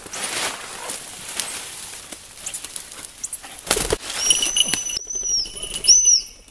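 Footsteps rustling through ivy undergrowth, then a loud thump and a goshawk's wings flapping as it leaves the falconer's glove just before the middle. A steady high ringing tone, with brief swooping notes, follows in the second half.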